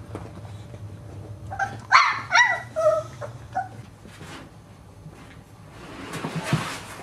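Boxer puppy giving a quick string of high yips and whines about two seconds in, several falling in pitch. Near the end a rustling scrape as a puppy slides down a plastic slide.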